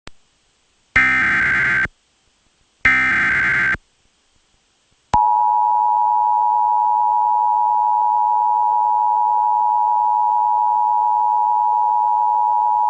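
Emergency Alert System header: two bursts of warbling digital SAME data, each about a second long. After a short gap comes the EAS two-tone attention signal, a steady two-note tone that sounds for about eight seconds and then cuts off. It signals the start of a broadcast severe thunderstorm warning.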